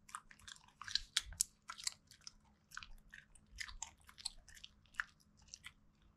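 A Shih Tzu chewing a treat: an irregular run of small crunches and clicks, several a second.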